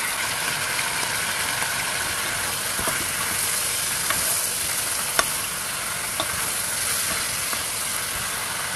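Beef spareribs searing in hot oil in a pan, a steady sizzle, with a wooden spoon stirring the meat and knocking a few times against the pan; the sharpest knock comes about five seconds in.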